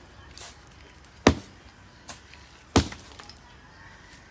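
Repeated sharp hand-tool strikes: two loud blows about a second and a half apart, with fainter knocks between them.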